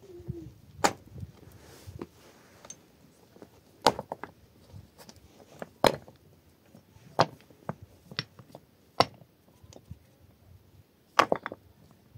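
A series of sharp knocks at irregular intervals, roughly one every one to two seconds, with a quick cluster of three near the end.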